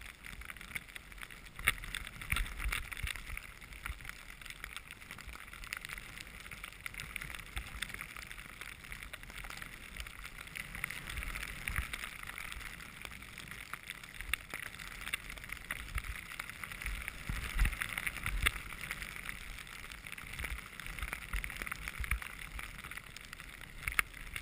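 Skis sliding through snow: a continuous hiss with many small scrapes and crackles, while wind rumbles and thumps on the microphone.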